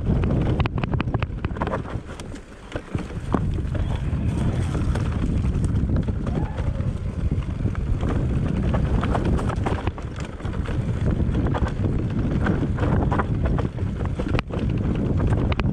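Enduro motorcycle riding a rough trail: heavy wind buffeting on the on-board microphone over the bike's running, with frequent knocks and rattles. The level drops briefly about two seconds in.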